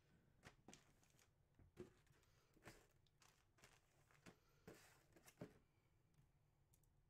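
Faint crinkling of plastic packaging and light taps as a bagged jersey and a cased mini football helmet are handled on a desk: a handful of short rustles that die away after about five and a half seconds.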